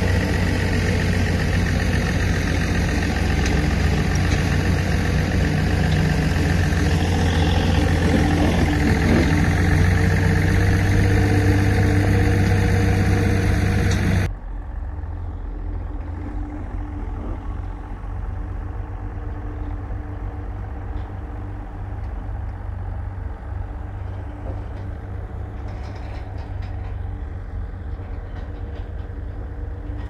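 Heavy earthmoving machine's diesel engine running steadily with a fast low pulse. About halfway through the sound drops suddenly to a quieter, duller engine sound.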